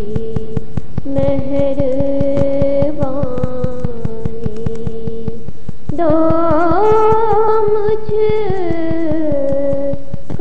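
Wordless vocal melody of a sung Urdu nazm: long held notes that glide from pitch to pitch, hummed or sung on a vowel, over a fast, even ticking pulse.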